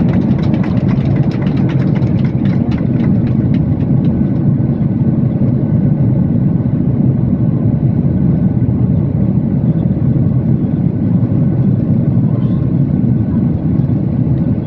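Steady jet engine and airflow noise inside the cabin of a Boeing 737-800, from its CFM56-7B turbofans, with light rattling clicks in the first few seconds.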